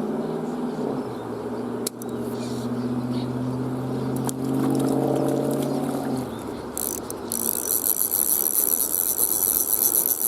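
Fly reel's click-pawl ratchet running while a hooked trout is played, on a reel its owner calls broken. A steady buzz lasts about six seconds and fades, then gives way to faster, higher-pitched clicking near the end.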